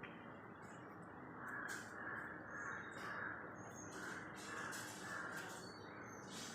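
A bird calling in two runs of about three harsh calls each, over steady background noise.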